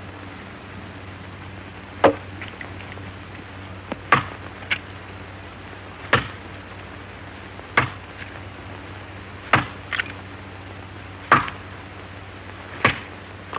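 Axe blows chopping into a tree trunk: about seven sharp strikes, roughly every two seconds, over a steady low hum.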